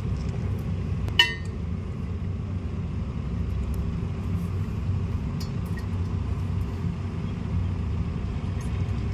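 Steady low machine drone, with a single sharp metallic clink that rings briefly about a second in and a few faint light ticks later.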